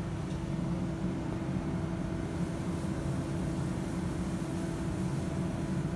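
Steady mechanical drone of the fume-extraction machinery that draws vapour off electroplating tanks, with a constant hum running through it.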